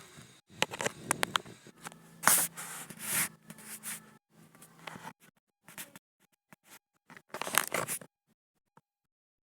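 Slime being stirred and worked in a container: irregular scraping and rubbing with a few sharp clicks, stopping about eight seconds in.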